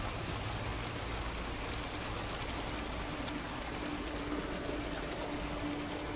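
Small brook running and splashing over rocks under a crust of ice, a steady rush of water close by.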